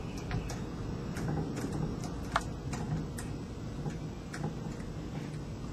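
Light, irregular plastic clicks and rubbing as a green plastic valve trigger assembly is hand-threaded onto PVC pipe fittings, with one sharper click about two and a half seconds in.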